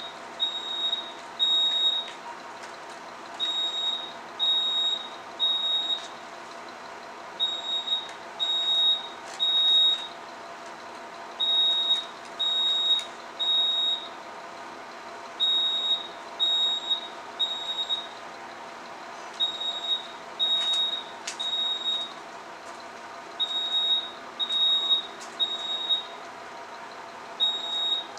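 Building fire alarm sounders giving high-pitched beeps in groups of three, each group repeating about every four seconds: the temporal-three evacuation pattern, set off by someone pulling a manual fire alarm.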